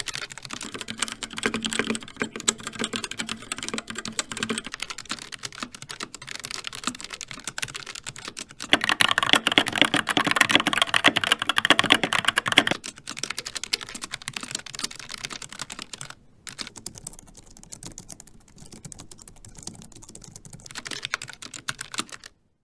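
Continuous fast typing on mechanical keyboards, a dense stream of key clicks in several takes. The typing changes abruptly in loudness and character: much louder and brighter for about four seconds in the middle, and quieter after a short break near the end.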